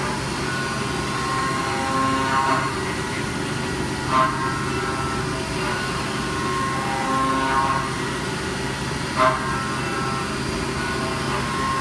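5-axis Haas CNC mill rough-machining an aluminium GM LS6 cylinder head: the spindle and cutter run with a steady hum, and a pitched cutting tone swells and fades every two to three seconds as the tool makes its passes. Two short sharp peaks come about four and nine seconds in.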